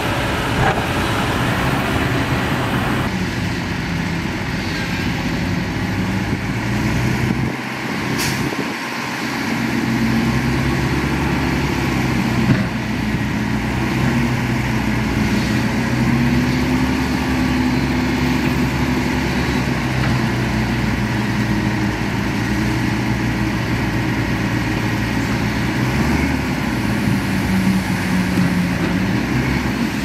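Heavy diesel engine of a large construction machine running steadily, its pitch rising and falling as it works, with a single sharp knock about twelve seconds in.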